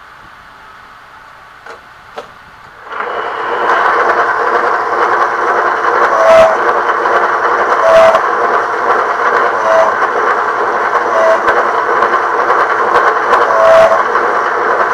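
A benchtop drill press starts about three seconds in and runs steadily, with five short squeals as the bit bores through the holster's kydex shell and leather backing.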